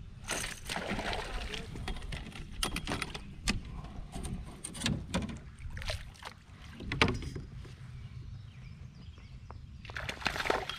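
A hooked fish splashing and thrashing at the surface as it is played toward a kayak, loudest near the end. There are several sharp clicks and knocks along the way, over a steady low rumble.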